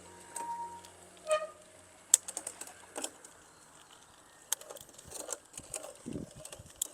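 Irregular sharp clicks from a mountain bike's gear shifters and chain as the gears are tried out.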